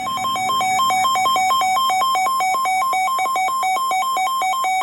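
Electronic emergency alert signal from a NOAA Weather Radio broadcast, stepping rapidly back and forth between two pitches, which marks the start of a severe thunderstorm warning.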